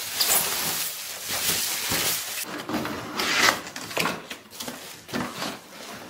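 Plastic wrapping sheet rustling and crinkling as it is pulled out of a cardboard box, densest in the first two and a half seconds. After that come intermittent rustles, cardboard scraping and light knocks as parts are handled in the box.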